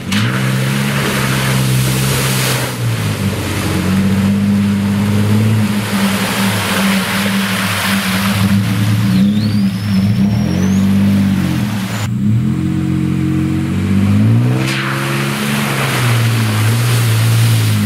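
Nissan Frontier pickup engine revving up and falling back again and again as the truck drives through deep muddy puddles, with water splashing and sloshing against the body and tyres.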